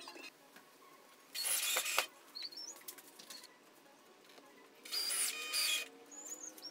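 Handheld power drill run in two short bursts about three seconds apart, driving fasteners into the wall to mount the copper tubing.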